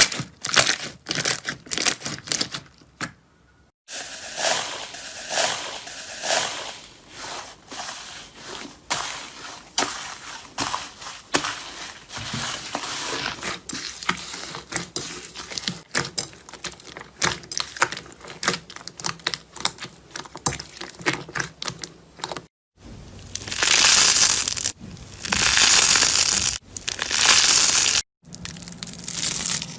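Slime being squeezed and pressed by hand, with dense crackling, popping clicks and squelches. It breaks off and restarts with a new clip about 4 seconds in, and again near 23 and 28 seconds.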